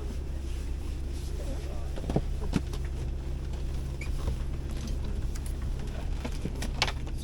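Steady low drone inside a small propeller plane's cabin, with scattered light clicks and knocks.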